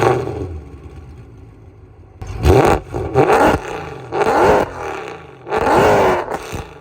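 Mercedes-Benz W204 C63 AMG's 6.2-litre V8, catless with aftermarket headers, revved in four sharp throttle blips. Each blip rises in pitch and drops back to a low idle rumble. A sharp click marks the very start.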